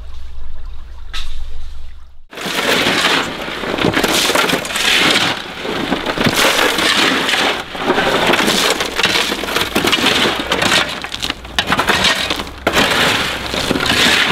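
Metal shovels scraping and digging into a load of gravel on a steel trailer bed: a dense crunching and rattling of stones with many small knocks, starting abruptly about two seconds in.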